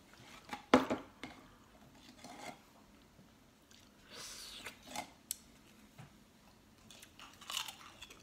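Handling of a Pringles can and its chips: a sharp knock about a second in, then light scraping and rustling. Near the end a wavy potato chip is bitten with a crisp crunch.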